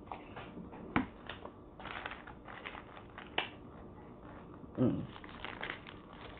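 A paper sandwich wrapper crinkling and rustling as a cheesesteak is handled, with scattered sharp clicks. There is one short hum-like voice sound just before the five-second mark.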